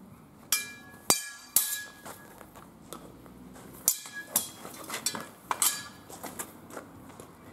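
Steel swords and bucklers clashing in a sparring exchange: sharp metallic clanks with a brief ring. Three come in the first two seconds, then a quicker cluster of strikes from about four to six seconds in.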